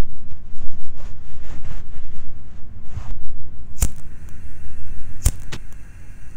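A cigarette lighter struck twice, two sharp clicks about a second and a half apart, after some rustling of clothing, over a steady low rumble.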